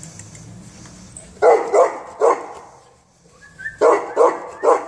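Neapolitan Mastiff barking in two groups of three barks, the first about a second and a half in and the second near the end.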